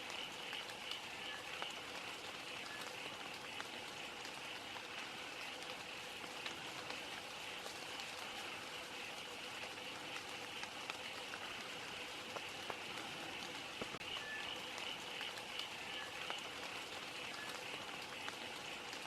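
Gentle rain falling, with many small drops ticking. A faint, steady pulsing trill runs underneath.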